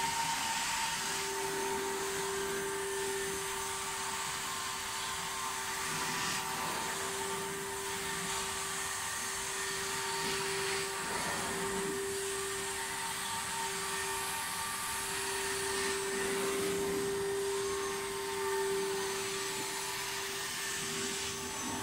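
Carpet extraction wand sucking up rinse water from carpet: a steady hiss of suction air under a steady whine that breaks off briefly now and then.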